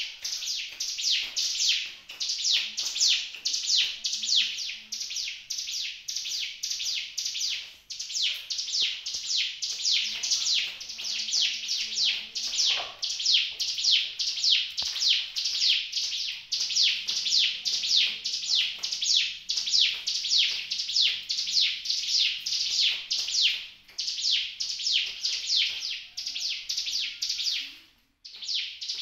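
Hill prinia (ciblek gunung) singing: a long run of rapid, repeated high chirps, each sweeping downward, about four to five a second, breaking off briefly a few times.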